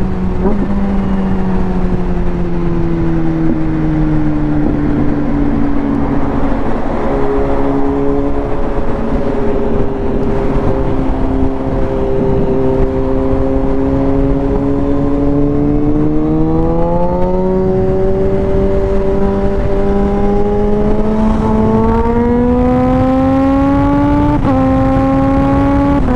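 Super naked sport motorcycle's engine running at highway speed with wind rushing past. The engine note sags a little, then climbs steadily in the second half, with a sudden step up in pitch near the end.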